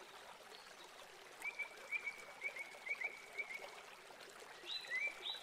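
Faint high-pitched chirping calls, a couple a second, with a second, higher call joining in near the end.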